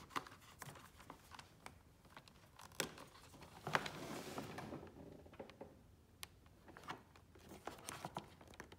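Small plastic clicks and handling noise as fingers work open a plastic inline fuse holder on a battery-charger lead, the cable shifting against the battery. A sharper click comes about three seconds in and another near four seconds, followed by about a second of scraping.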